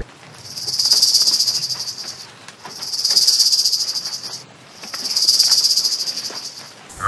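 A high-pitched, rapidly pulsed insect trill in three long swells of about two seconds each, with short gaps between them.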